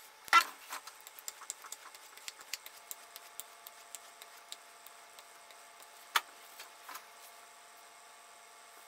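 Swivel knife and strop handled on a granite countertop: a sharp knock just after the start, then a run of light, irregular ticks from stropping strokes that thin out over the next few seconds, and another sharp click about six seconds in.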